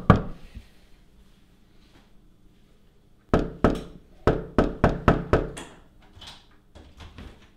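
Loud knocking on a wooden door: two knocks, a short pause, then five quick knocks, followed by a few faint taps.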